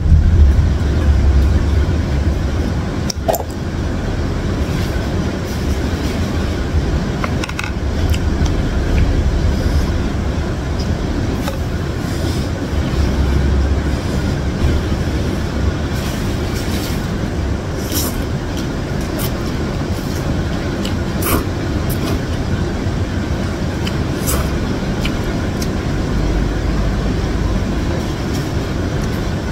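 Heavy rain heard from indoors as a loud, steady low rumble, with a few short clicks and noodle-eating sounds from chopsticks and a wooden spoon at a bowl of instant noodles.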